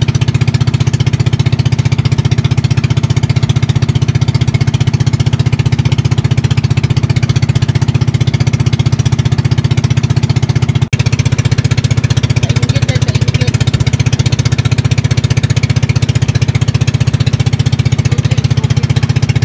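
Boat engine running steadily, a loud, fast, even chugging. It breaks off for a split second about eleven seconds in.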